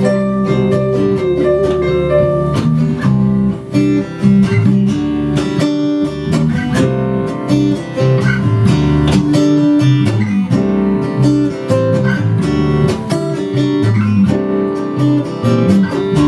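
Instrumental guitar break in a folk-style song: acoustic guitar played with many picked and strummed notes over a moving bass line, without singing.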